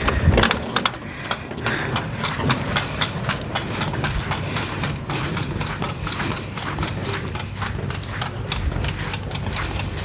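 Retractable garden hose reel paying out hose as it is pulled, its ratchet clicking steadily a few times a second over a low rumble.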